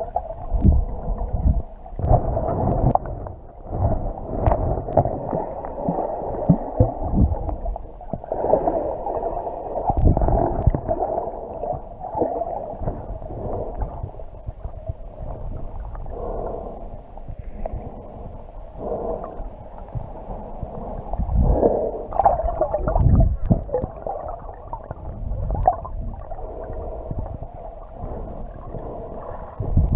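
Muffled underwater water noise while snorkelling: gurgling and sloshing with irregular low thumps as the swimmer moves through the water.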